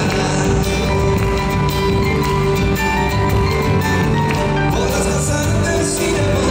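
Live Argentine folk dance music, an escondido, played by a band at a steady loud level.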